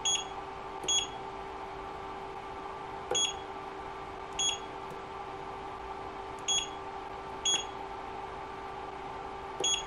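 Creality Ender 5 S1 touchscreen beeping each time the stylus presses a menu button: seven short, high-pitched beeps at uneven intervals over a steady background hum. This is the touch sound the narrator calls annoying, which cannot be turned off in the interface.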